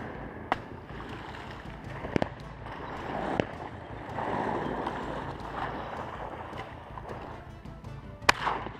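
Background music, with several sharp shots from a 12-gauge shotgun: one about half a second in, two in quick succession around two seconds, one more a second later, and the loudest near the end.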